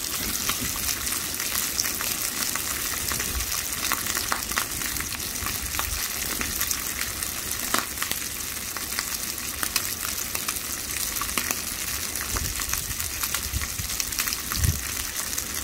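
Thick-cut bacon slabs and maitake mushrooms frying in a hot pan: a steady sizzle with many small crackles and pops of spattering fat.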